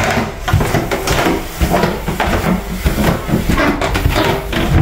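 Footsteps going down carpeted stairs, about two a second, with rustling from the handheld camera.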